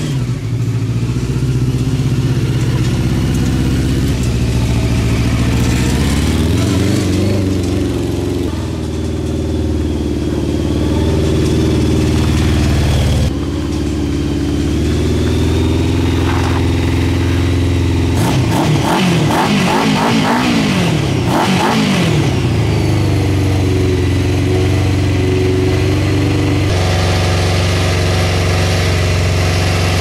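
Honda CBR600 inline-four motorcycle engine in a home-built reverse trike, running and revving up and down repeatedly as the trike is driven. Near the end it settles into a steady idle.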